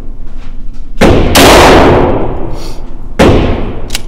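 Three 9mm shots from a compensated Glock 17L pistol, echoing in an indoor shooting stall: two in quick succession about a second in, and one a little after three seconds. The firing then stops, and small clicks follow. The pistol has stovepiped, a failure the shooter puts down to the gun being dry and the ammunition.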